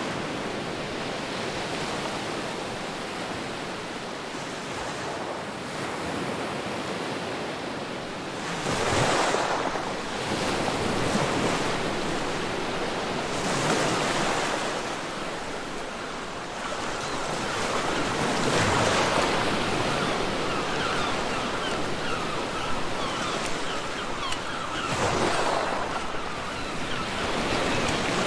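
Ocean waves breaking on a beach: a steady wash of surf with a louder wave surging in about every four to six seconds.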